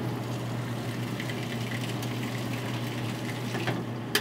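Swamp cooler running with a steady low hum, with a few light ticks and one sharp knock just before the end as its louvered side panel is lifted back into place.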